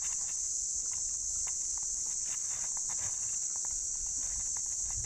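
A steady, high-pitched drone of insects in the bush, with scattered faint clicks.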